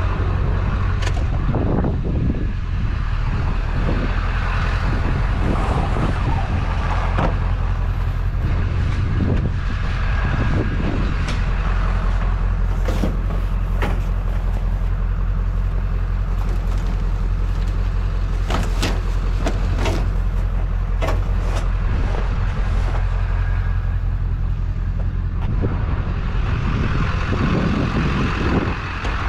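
A motor vehicle's engine running steadily, with scattered knocks, clanks and rattles over it.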